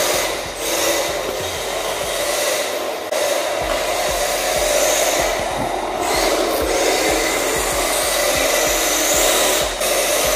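Yokomo YD-2Z RC drift car's electric motor whining, rising and falling with the throttle, as the tyres slide and hiss on smooth concrete.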